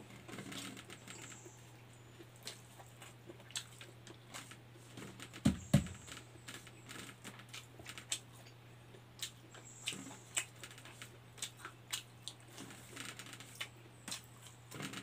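Close-up eating sounds of a person eating corn rice and dried fish by hand: small wet mouth clicks, chewing and lip smacks, with fingers scraping and pressing grains on a banana leaf. A steady low hum runs underneath, and two dull thumps about halfway through are the loudest sounds.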